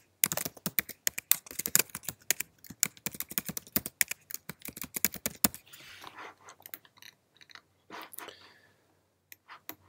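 Rapid typing on a computer keyboard: a quick run of key clicks that stops about five and a half seconds in, followed by a few scattered clicks near the end.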